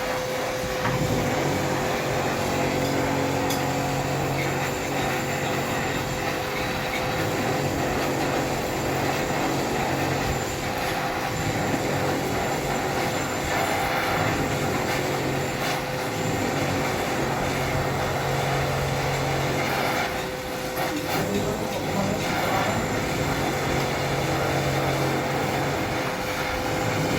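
Steady mechanical noise: a continuous hiss with a constant tone, under a low hum that comes and goes every few seconds.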